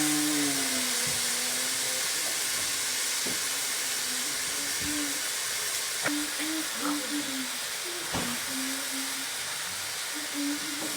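Bacon sizzling steadily in a frying pan, with a few small pops.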